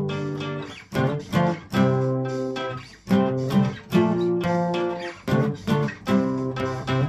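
Acoustic guitar strumming chords in a rhythmic pattern, each strum ringing and fading before the next.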